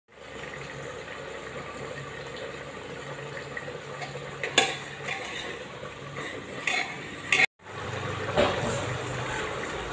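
Kitchen utensil sounds: a steady low hum with a few sharp metal clinks, then, after a brief silence, a metal ladle stirring and scraping masala in an aluminium pressure cooker.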